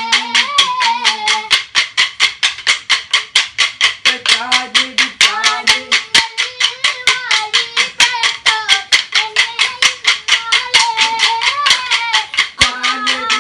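Kolkali stick dance: short wooden sticks struck together in a fast, even rhythm, about five clacks a second, while voices sing a wavering folk melody over them.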